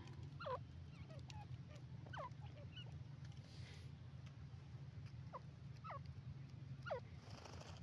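Grey francolin giving about six short call notes, each falling in pitch, spaced irregularly a second or so apart over a steady low hum.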